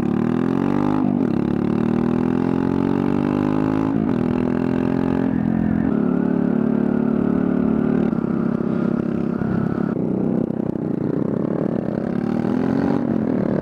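Honda Grom's 125 cc single-cylinder engine pulling through the gears with an open header, its muffler gone. Pitch climbs and drops at each upshift (about a second in, then around four and five seconds in), holds steady for a while, then climbs again near the end.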